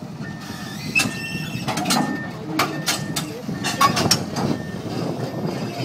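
Komatsu PC200LC hydraulic excavator running, with a string of sharp metal clanks and knocks from about a second in as it works on the steel trailer deck.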